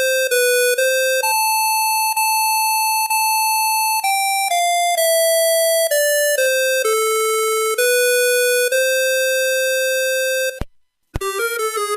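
Astrofone M51i mobile phone playing a monophonic ringtone: a simple melody of held, buzzy electronic beeps, one note at a time. It stops near the end, and after a half-second gap a new, quicker tune starts.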